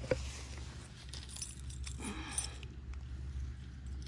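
Small metallic rattles and clicks of a fishing lure and its hooks being handled while the hook is worked free from a bass's mouth, over a steady low rumble.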